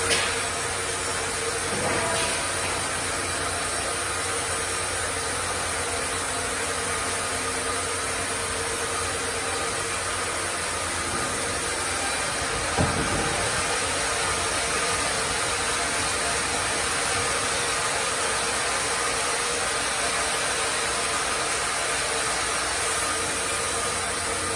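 Carriage band sawmill running steadily while a tree-of-heaven log is carried through the band saw. One short knock about 13 seconds in.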